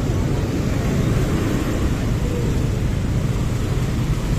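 Slow-moving motorcycles and cars in a traffic jam: a steady low engine and road rumble with no single event standing out.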